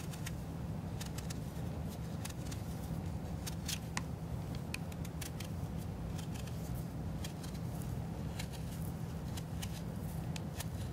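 Serrated blade of a vegetable peeler scraping through kiwi skin: faint, irregular scratchy clicks over a steady low hum.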